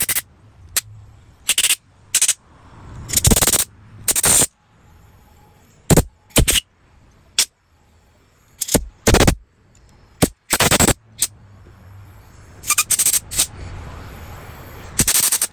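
Short bursts of compressed air from a pistol-grip air blow gun, fired about a dozen times at irregular intervals into the jets and passages of a disassembled Evinrude 4 hp outboard carburetor to clear out the carb cleaner. Most blasts are very brief, and a few last about half a second.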